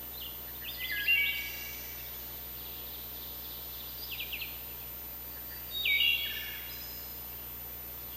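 A songbird singing three short phrases over a steady woodland background hiss: the first about a second in, a shorter one around four seconds, and a third near six seconds.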